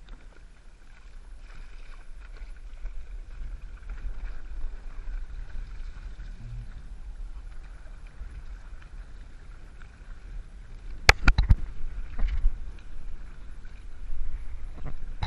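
Windsurf board sailing over choppy water: water rushing past the hull and wind rumbling on the microphone, with a quick run of sharp knocks about two-thirds of the way through.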